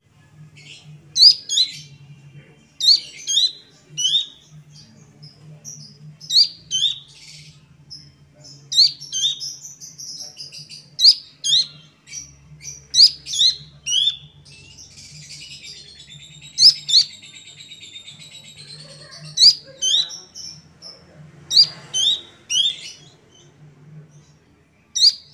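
Juvenile Horsfield's babbler singing: short, high, downward-slurred whistled notes, mostly in pairs, repeated every second or two, with a longer buzzy chattering passage about midway through.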